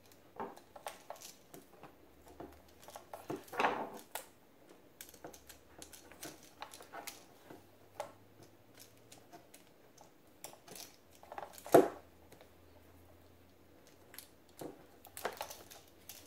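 Small clicks, taps and rustles from hand-wiring a wire onto a plastic duplex electrical outlet, with one sharper knock about twelve seconds in.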